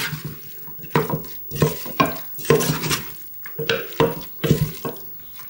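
Metal spoon stirring raw chicken pieces coated in oil, onion and spices in a stainless steel pot. It scrapes and knocks against the pot in short strokes about twice a second, with the wet mix squishing between them.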